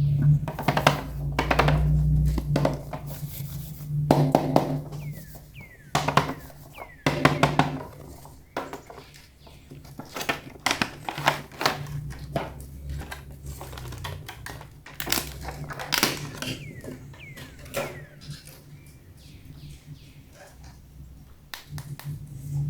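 Plastic toy parts and packaging being handled, with repeated sharp clicks, taps and knocks at irregular intervals and some light rustling. A steady low hum runs underneath.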